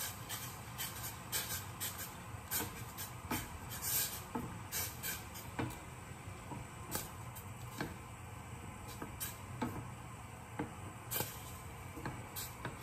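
Wooden spoon stirring sauce in a stainless steel saucepan, knocking and scraping against the pan in irregular clicks, over a steady low hum.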